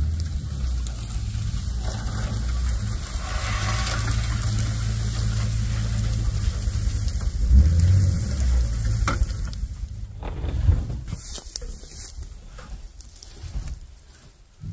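Farm pickup truck's engine running at low speed, a steady low rumble that swells briefly about eight seconds in and dies away after about ten seconds. A few light knocks and rustles follow near the end.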